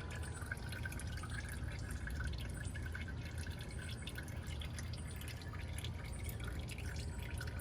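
Old engine oil draining from the oil pan of a 5.7 Hemi V8: a steady trickle with many small drips.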